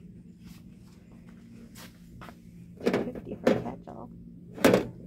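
A hinged plastic case being handled on a metal shelf: its lid clacks open and shut in a few sharp knocks in the second half, the loudest near the end.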